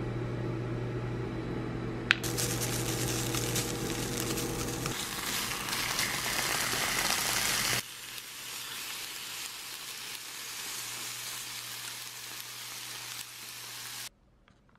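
Food sizzling in oil in a non-stick frying pan. A click about two seconds in is followed by loud sizzling of crumbled tofu in oil. Then comes quieter sizzling of thin beef slices being turned with tongs, which stops suddenly near the end. A steady low hum runs underneath.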